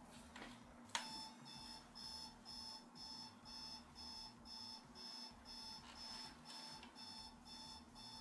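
Electronic alarm beeping in a steady repeating pattern, about two short high beeps a second. The beeping starts with a click about a second in.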